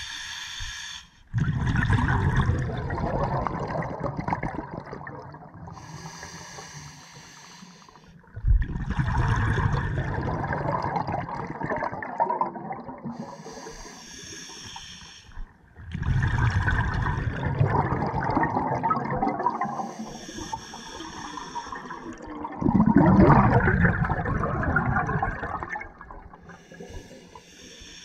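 Scuba diver breathing through a regulator underwater: a short hissing inhale, then a longer rush of exhaled bubbles, four breaths about seven seconds apart.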